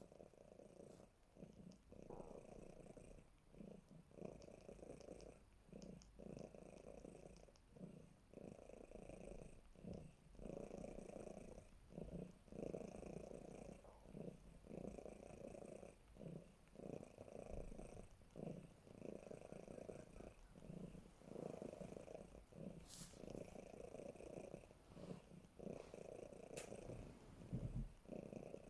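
Cat snoring in its sleep: a faint, rhythmic rasping rumble that pauses briefly about once a second with each breath.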